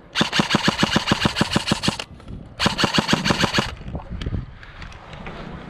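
Airsoft electric gun firing on full auto in two bursts, about ten shots a second: a burst of about two seconds, then a shorter burst of about a second.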